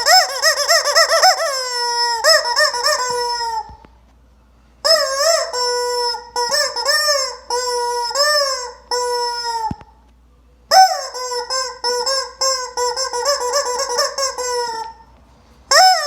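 Rubber chicken squeaky toy squawking in strings of short, wavering squeaks. There are three long bouts with pauses of about a second between them, and another bout starts at the very end.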